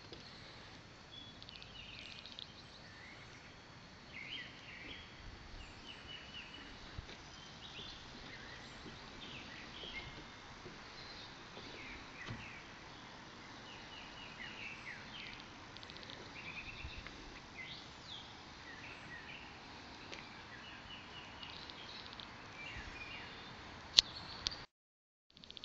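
Birds chirping in short repeated calls, over a faint steady high whine. Near the end there is a single sharp click, then the sound drops out for a moment.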